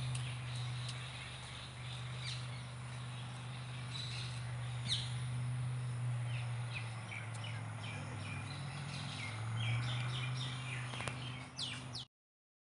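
Outdoor ambience of small birds chirping: scattered short calls, coming thicker in the last few seconds, over a steady low rumble. The sound cuts off abruptly about twelve seconds in.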